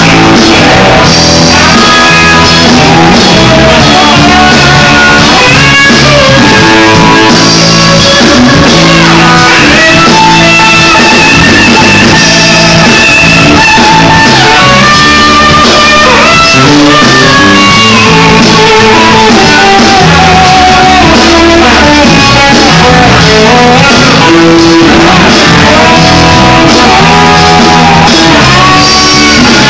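A live band playing loud: two electric guitars over a drum kit, with a lead line of held notes that bend and slide in pitch.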